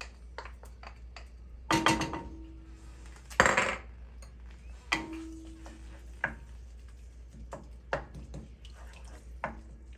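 A wooden spoon and a small bowl knocking and scraping against a cooking pot as garlic-ginger paste is scraped into hot oil and stirred. There are half a dozen sharp knocks, two of which leave the pot ringing briefly, and the loudest is a short scrape about three and a half seconds in.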